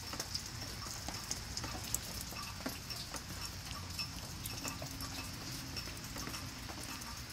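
Irregular light ticks and taps of water dripping onto a wet plastic tarp, lid and leaves, over a faint steady high-pitched hum.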